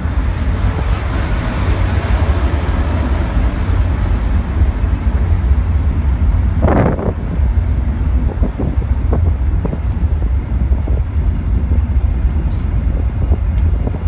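Passenger train running over a steel truss railway bridge: a steady heavy rumble with a louder clatter about seven seconds in and scattered sharp clicks after it.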